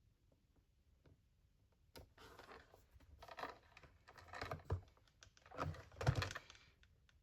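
Paper trimmer's scoring blade being run along its track over patterned paper: a rattling, clicking scrape with several louder knocks, starting about two seconds in and stopping shortly before the end.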